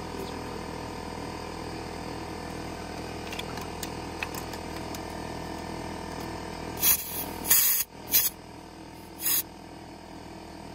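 Compressed air from an air hose hissing in four short bursts, from about two-thirds of the way in, as a flat pit bike tyre is aired up. A steady hum runs underneath.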